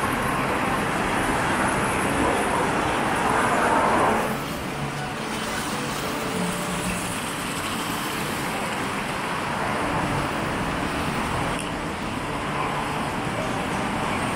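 Steady outdoor city traffic noise, an even wash of passing road vehicles, a little louder for the first four seconds and then easing.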